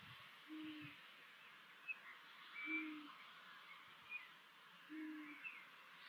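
Long-eared owl giving a low, soft hoot three times, evenly spaced about two seconds apart. Faint short high chirps sound in between.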